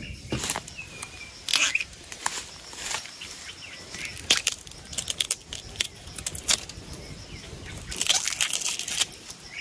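Brush and leaf litter rustling and crunching, with irregular sharp snaps and crackles that grow denser near the end.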